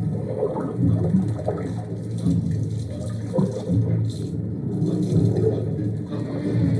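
Film sound of aquarium water bubbling and gurgling, with low tones wavering underneath.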